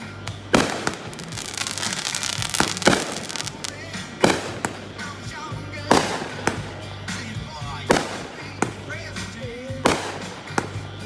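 Consumer fireworks going off in quick succession: about ten sharp bangs from aerial cakes and mortar shells, with crackling in the first few seconds.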